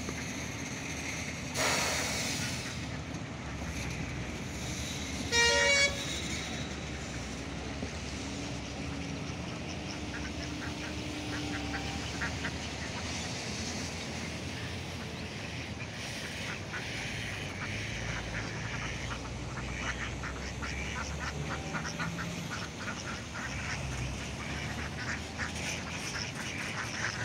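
A flock of domestic ducks, many of them Indian runners, quacking and calling on and off over the sound of the water. A brief loud burst of noise comes about two seconds in, and a short loud honk about five seconds in.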